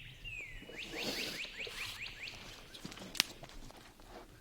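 A songbird singing clear whistled notes: a couple of falling slurs, then a quick run of about seven rising notes. A single sharp click comes about three seconds in.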